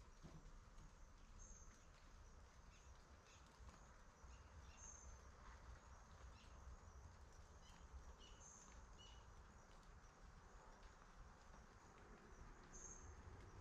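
Near-silent outdoor ambience: a faint low rumble with a short high chirp about every three to four seconds and a few softer, lower chirps between them.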